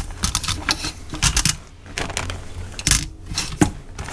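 Frozen chicken tenderloins being set down on a wire rack inside a metal pressure-cooker pot: a series of irregular sharp clicks and knocks.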